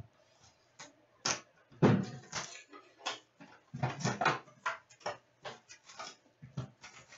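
A hockey card box being opened and its packs handled: an irregular run of short crackles, rustles and taps from cardboard and foil wrappers.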